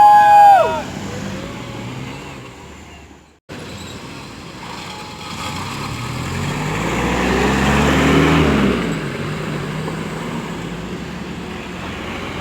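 A vehicle engine passing close by, growing louder to a peak about eight seconds in, then fading as its pitch drops. It opens with a short, loud pitched tone that ends within a second.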